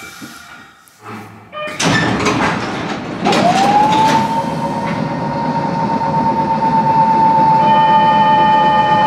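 Pneumatic passenger door of a former-Hankyu 3100 series train opening with a sudden rush of air, then the car's electric air compressor starting: a whine that sweeps up within a fraction of a second and holds a steady pitch over a loud, pulsing running noise.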